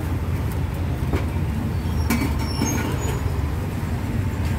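Street traffic rumbling steadily, with motorbikes and other vehicles going by, plus a few light clicks.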